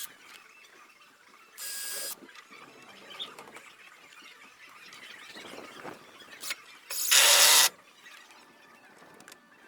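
Cordless drill run in two short bursts of about half a second, one about two seconds in and a louder one about seven seconds in, driving screws into timber.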